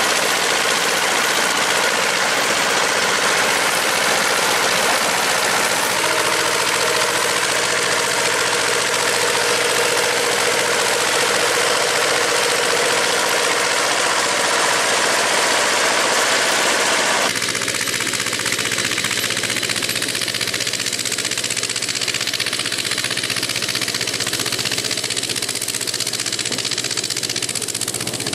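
Ursus C-330 tractor's two-cylinder diesel engine running steadily while pulling a manure spreader that is throwing out manure. A little over halfway through the sound drops slightly in level and turns duller.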